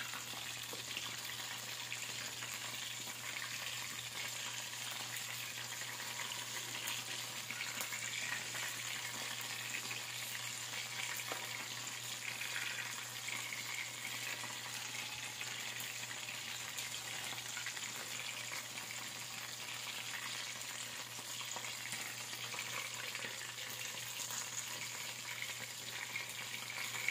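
Chicken pieces deep-frying in hot oil in a wok: a steady crackling sizzle of bubbling oil.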